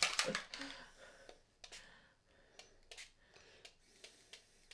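Short hiss of a spray bottle near the start, then scattered faint clicks and taps as craft supplies are handled on the worktable.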